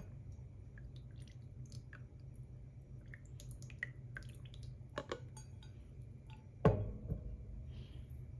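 Pour-over coffee dripper being handled over a glass server: faint drips and small taps as it is lifted off, then a sudden solid clunk about two-thirds of the way through as it is set down on a saucer, with a lighter knock just after.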